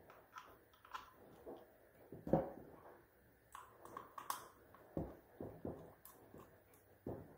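Faint clicks and knocks of a hand screwdriver working a terminal screw in a plastic NEMA 14-50P plug, with the plug body being handled; in the second half the clicks come regularly, about three a second.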